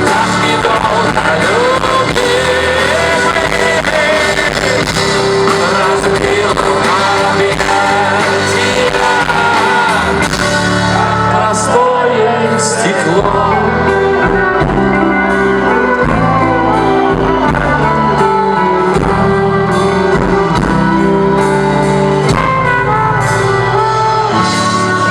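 Live rock band playing loudly with a voice singing over electric guitar, drums and bass, heard as a hall recording.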